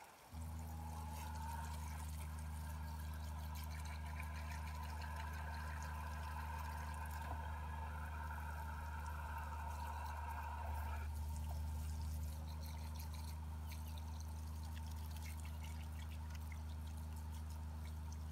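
Water running and pouring steadily over a dog's coat during her bath, over a steady low mechanical hum that switches on suddenly at the start.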